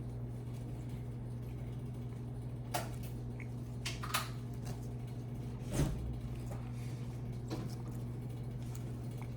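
A steady low hum with a handful of short, light clicks and knocks scattered through it, the loudest about six seconds in.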